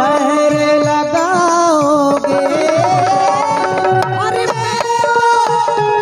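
Live ghazal music: a male singer holds long, wavering, drawn-out notes over keyboard accompaniment and a steady drum beat.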